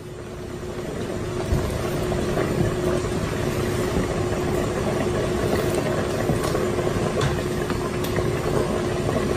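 Pot of soup boiling on an electric stovetop: a steady rumbling bubble with a steady hum underneath, swelling over the first couple of seconds, and a few faint light clinks.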